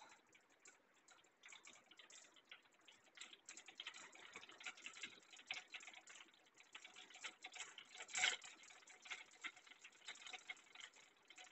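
Mustard and cumin seeds faintly crackling and popping in hot oil in a kadhai: a tempering (tadka). Irregular tiny pops, with one louder pop about eight seconds in.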